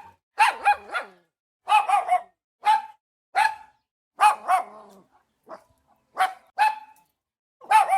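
A dog barking repeatedly: short, fairly high-pitched barks, singly and in quick pairs, about one burst a second.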